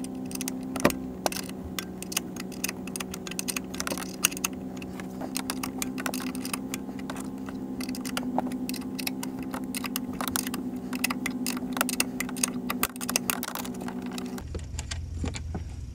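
Ratchet wrench clicking rapidly and unevenly as it backs out a 10 mm bolt, with a steady low hum underneath that stops near the end.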